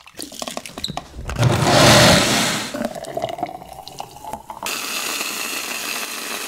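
Kitchen sounds of a milkshake being made. Milk pours and splashes into a blender jug, and about a second and a half in the blender gives a loud, brief rush. Then the thick shake pours into a tall glass, its pitch rising as the glass fills, and near the end an aerosol whipped-cream can hisses steadily.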